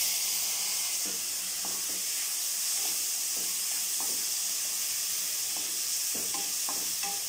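Chopped tomatoes and onions sizzling steadily in hot oil in a kadai. A spatula stirs them, giving scattered light scrapes and taps against the pan.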